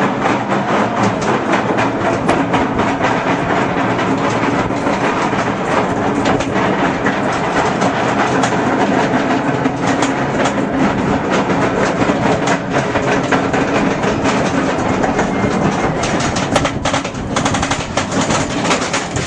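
Roller coaster train running along its track, a steady loud clattering rattle.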